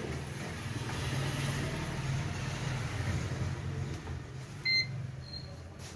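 Steady electric hum of a running appliance or small motor. A short electronic beep comes about three-quarters of the way through, and a fainter one follows a moment later.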